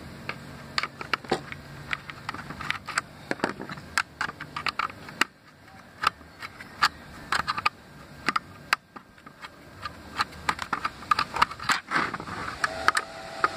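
Irregular clicks and taps of a small screwdriver and loosened screws against the metal screen hinge brackets and plastic case of a netbook as the bracket screws are taken out, with a low hum underneath in the first few seconds.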